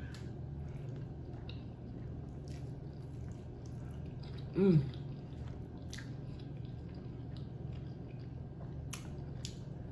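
Close-miked mouth sounds of someone eating pork neck bone meat: soft wet chewing and lip smacks, with a short hummed 'mm' about halfway through. A steady low hum runs underneath.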